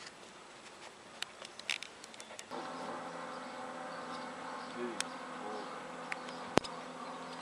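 A steady, even buzz starts suddenly about two and a half seconds in and holds without changing pitch, over a few faint clicks; a single sharp click stands out near the end.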